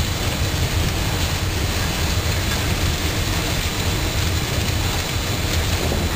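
Rotary asphalt drying drum with a RAP (reclaimed asphalt) inlet ring running: a steady, unbroken low rumble of machinery with a hiss over it.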